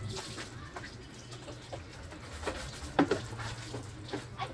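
Water from a garden hose running and splashing onto a motorcycle being washed, with several sharp splashes or knocks, the loudest about three seconds in.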